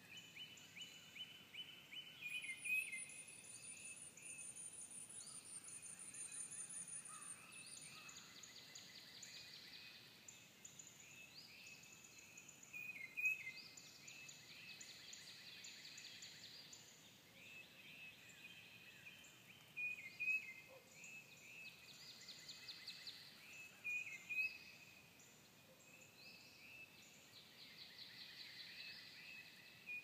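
A spring morning chorus of several songbirds: repeated trilled songs overlap throughout, with a few louder short notes every several seconds.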